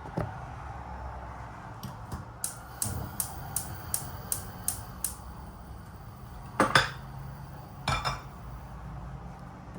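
Dishes and utensils handled in a kitchen. A knock comes first, then a run of about eight even, sharp clicks at roughly three a second, and two louder clanks near the end.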